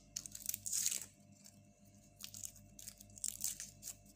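Garlic cloves being peeled: papery skins crackling and tearing in short, irregular bursts.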